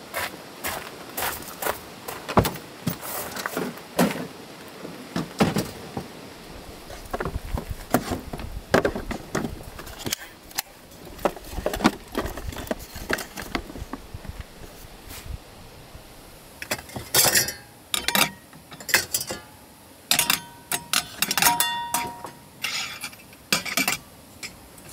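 Gear being handled and set in place: a string of knocks and clatters from wooden storage boxes and bottles, then metal frying pans clinking with short ringing tones as they are hung on a rail, near the end.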